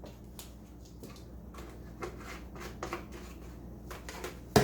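Light handling clatter, a series of soft clicks and taps, ending in one sharp knock just before the end.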